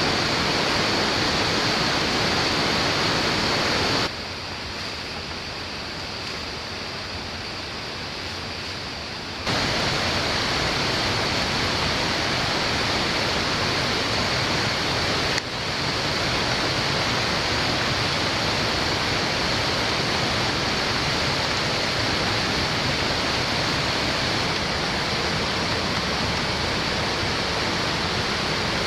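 Steady rushing of running water. About four seconds in it turns quieter and duller for roughly five seconds, then returns to full strength.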